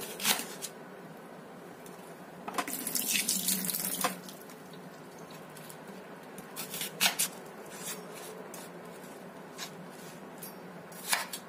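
Chef's knife cutting through an onion on a wooden cutting board: sharp knocks of the blade hitting the board, a few at a time, and a longer crisp stretch of slicing about two and a half to four seconds in.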